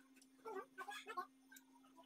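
A person eating: a few short, clicky mouth sounds of chewing about half a second to a second in, over a faint steady hum.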